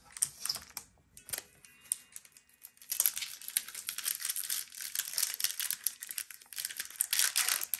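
Foil wrapper of a Pokémon Lost Origin booster pack crinkling as it is taken from the box and worked between the fingers: a few short crinkles at first, then steady crinkling from about three seconds in.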